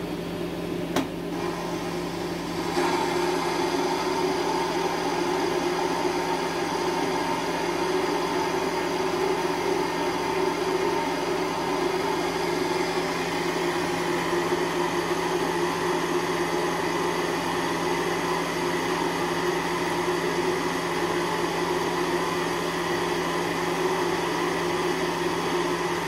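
Schaublin 102VM lathe running steadily while a carbide insert tool takes a test turning cut on a steel shaft. There is a click about a second in, and about three seconds in the sound steps up louder and fuller, then holds steady.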